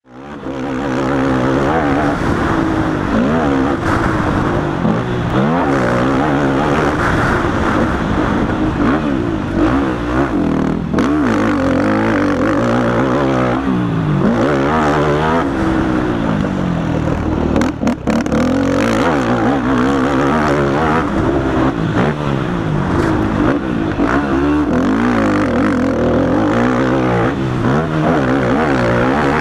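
A Yamaha YFZ450 quad's single-cylinder four-stroke engine, heard from on board at racing speed. The revs climb and fall over and over as the rider accelerates, shifts and backs off around the track.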